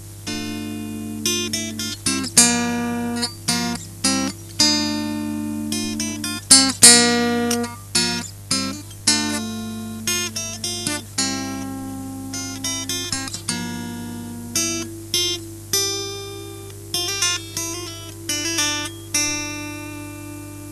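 Acoustic guitar playing an instrumental passage of plucked notes and strummed chords, each ringing out and fading before the next.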